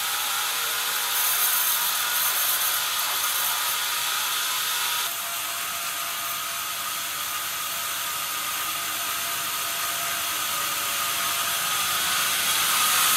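Sawmill band saw running steadily, its blade and drive giving a constant machine noise with a thin high hum; the sound drops a little about five seconds in.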